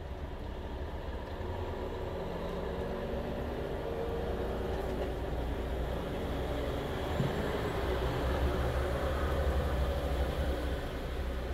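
Diesel engines of vehicles driving slowly past on a wet road, building to the low rumble of an articulated lorry pulling a bulk tanker trailer close by, loudest near the end.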